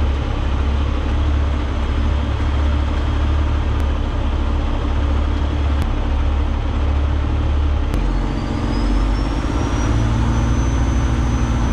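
Peterbilt semi truck's diesel engine running steadily at low speed as the loaded car hauler maneuvers. About eight seconds in, the engine note shifts and a thin high whine rises, then holds.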